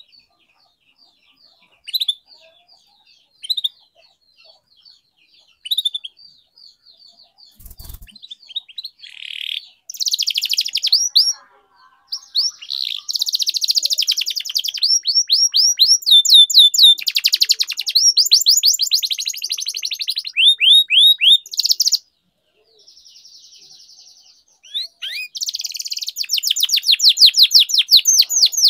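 Domestic canary singing: single short chirps every couple of seconds at first, then from about ten seconds in long, loud runs of rapid trills and rolls, with a brief break just past twenty seconds. A single short thump comes near eight seconds.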